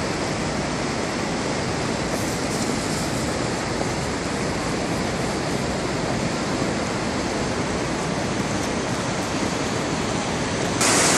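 Steady rushing of a river swollen by rain and snowmelt, its fast brown water running over rapids. It becomes louder and hissier near the end.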